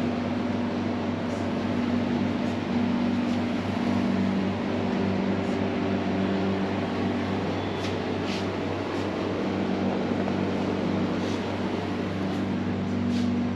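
Steady low mechanical hum with a few held low tones that shift slightly now and then, and a few faint clicks.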